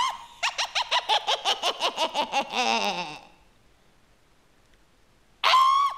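A rising squeal breaks into rapid, high-pitched cackling, about five pulses a second, for about three seconds. It stops dead, and after two seconds of near silence the same squeal and cackling start again.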